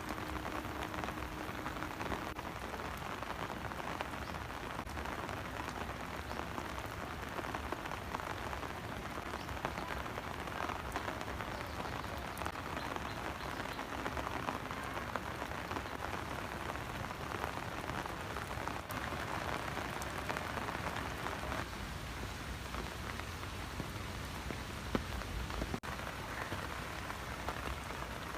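Light rain falling steadily as a drizzle, an even hiss of fine raindrops with scattered small ticks.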